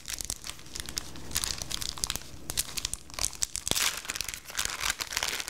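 Clear plastic packaging crinkling and crackling in the hands as sliced cheese is taken out of it, with many small irregular crackles.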